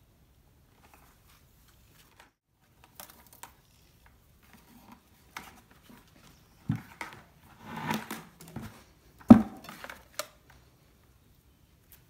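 Hands handling a plastic bucket and a wire being fed through a hole in its wall: scattered clicks, scrapes and rustles with a few louder knocks, the loudest about nine seconds in.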